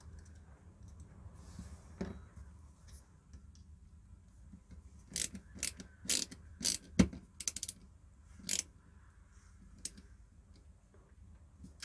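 Sharp clicks and taps of small plastic and metal parts of an oscilloscope kit being handled and fitted, about eight in a quick cluster midway, one louder knock among them.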